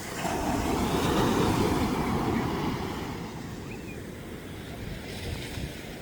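Ocean wave breaking and washing up the beach: a rushing noise that swells in, is loudest after about a second, and fades away by about three seconds in.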